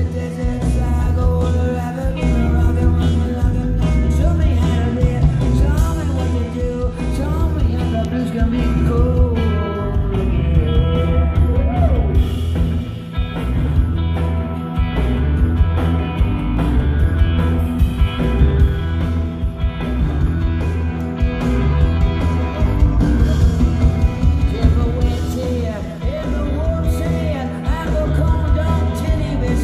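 Rock band playing live with a singer, heard from among the crowd in a concert hall: heavy bass and drums under guitars, with the lead vocal on top.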